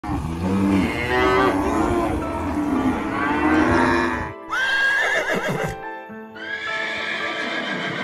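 Background music with farm-animal calls over it; about halfway through a horse neighs, a high whinny with a wavering pitch.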